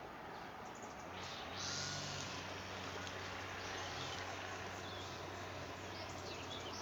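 Outdoor nature ambience: faint, short bird chirps over a constant background hiss, with a steady low hum starting about a second and a half in and a brief high hiss just after it.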